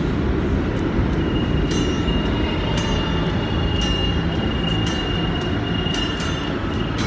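A subway train rumbles through the station, with a steady high wheel squeal that sets in about a second in. An acoustic guitar is strummed a few times over it.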